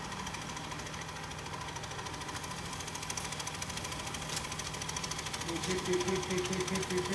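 Small go-kart engine idling with a rapid, even putter.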